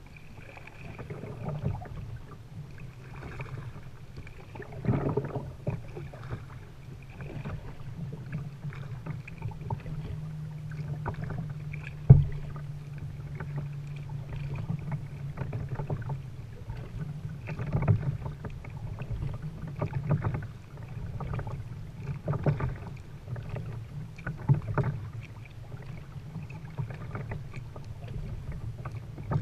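Kayak paddle strokes splashing in the water, one about every two to three seconds, with one sharp knock about twelve seconds in.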